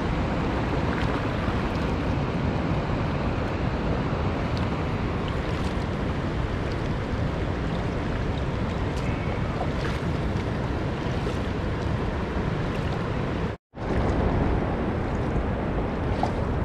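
Steady rush of wind buffeting the microphone, mixed with water lapping around a paddled kayak. The sound cuts out completely for a split second about three-quarters of the way through.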